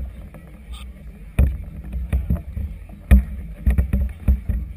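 Choppy harbour waves slapping against the hull of a moored vessel: irregular dull thuds and splashes over a steady low rumble.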